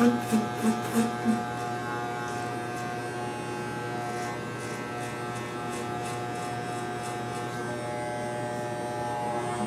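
Andis Envy corded electric hair clipper with a guard comb buzzing steadily as it shaves the side of a head. A short run of five quick pulses, about three a second, stands out over the buzz in the first second and a half.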